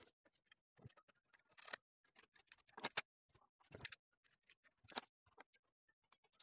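Faint, irregular clicks, taps and brief rustles of small objects being handled on a desk, with an occasional soft knock.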